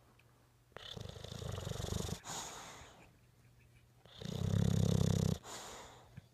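English bulldog snoring: two rattling snoring breaths, the second about four seconds in and louder, each trailing off into a softer breath.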